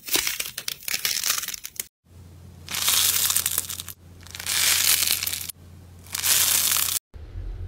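Slime being squeezed by hand. A thick slime gives a dense crackle of many small pops and clicks, then a textured, honeycomb-like slime gives three crackling squeezes of about a second each over a low hum.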